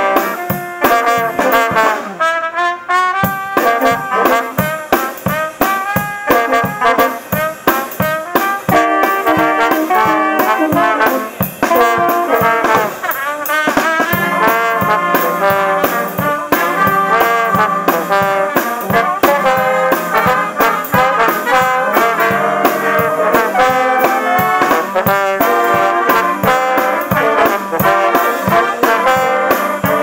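Brass band playing a tune with trombone, tuba, saxophones and drums, over a steady drum beat.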